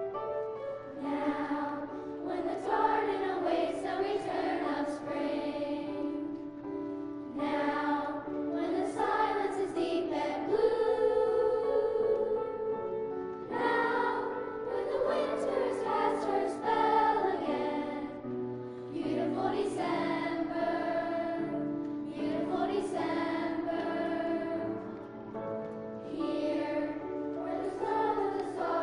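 A choir singing a song in long phrases of several seconds each.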